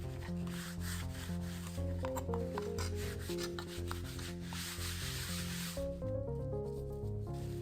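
Mesh sandpaper rubbing back and forth on a rusty steel knife blade with WD-40, scrubbing off the rust; the rubbing stops about six seconds in.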